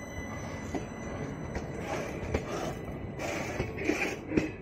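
Passenger train coaches rolling past close by: a steady rumble of wheels on rail with sharp clacks as the wheels cross rail joints.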